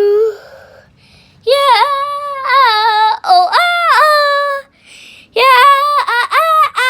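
A young child's high-pitched voice wailing in a string of long notes that slide up and down in pitch, then a quicker run of short wails near the end.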